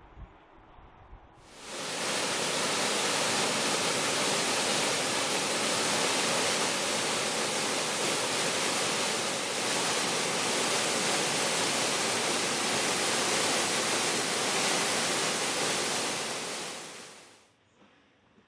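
A loud, steady, even hiss that starts abruptly about a second and a half in and fades out about a second and a half before the end.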